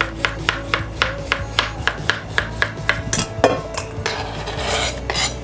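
Kitchen knife chopping a cucumber into rounds on a plastic cutting board, about four cuts a second. About three seconds in, the chopping stops and the slices are slid off the board into a stainless steel mesh colander with a scraping rustle.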